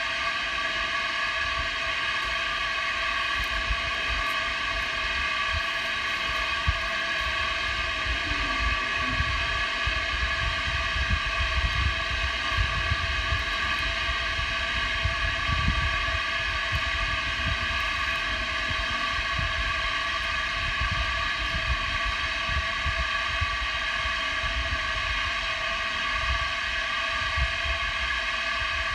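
Steady electrical hum of several tones from a New York City subway train standing in the tunnel, with low, uneven wind buffeting on the microphone.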